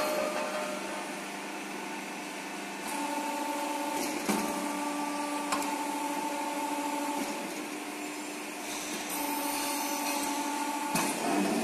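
CNC tube bending machine running through a bend cycle: a steady whine from its drives that sets in about three seconds in, drops away briefly and returns, with a few sharp clicks as the clamps and dies engage.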